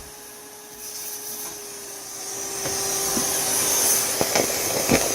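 Small shop vac running: a steady motor hum, with its suction hiss swelling louder over the first few seconds and a few sharp clicks later on.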